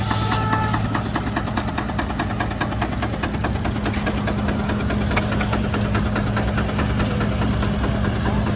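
An engine running steadily, with a constant hum and a fast, even knocking beat.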